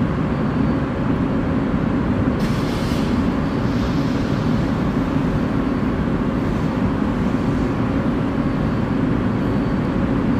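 Mechanical multi-level parking lift running, a steady low drone from its drive as a car pallet moves between levels. A short hiss comes about two and a half seconds in.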